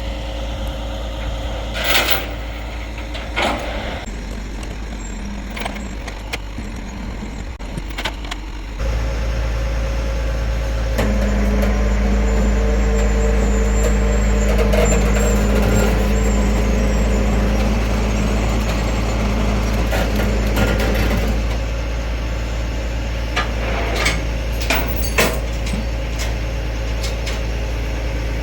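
Tow truck engine running with a heavy low rumble that gets louder about nine seconds in. A steady hum is held for about ten seconds in the middle, and a few sharp knocks come near the start and again near the end.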